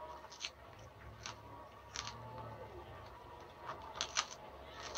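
Faint, irregular sharp clicks, about seven in five seconds and a few close together near the end, over a low steady hum.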